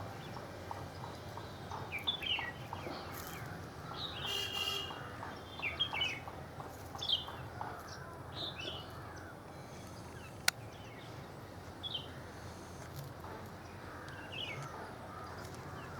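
Birds chirping: short, falling calls repeated every second or two over a steady outdoor background hiss, with one sharp click about ten seconds in.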